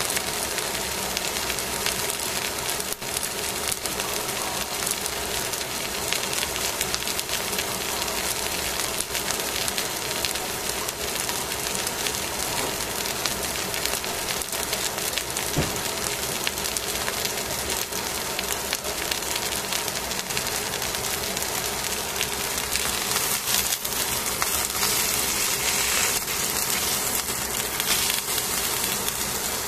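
Small whole fish sizzling steadily on aluminium foil in a pan as they grill, the sizzle growing a little louder near the end as the fish are turned over with tongs.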